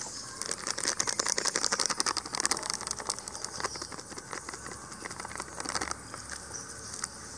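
A small plastic spice sachet crinkling and crackling as it is torn open and squeezed to pour powder onto a spoon. The crackling is densest for the first three seconds, then thins to scattered crackles and ticks.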